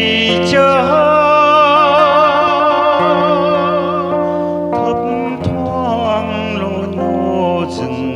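Music: a sustained melody line with strong vibrato over steady held accompaniment, shifting to a new phrase about halfway through.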